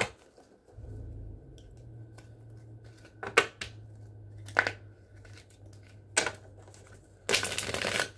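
Tarot cards being handled: a few sharp snaps and taps of cards spaced over several seconds, then about a second of cards shuffling and rustling near the end. A low steady hum lies underneath.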